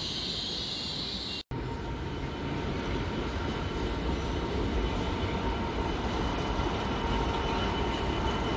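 A diesel freight locomotive hauling tank wagons, its engine rumbling steadily with a faint whine and growing slowly louder as it approaches. About a second and a half in, a higher hiss from a standing train cuts off abruptly at an edit.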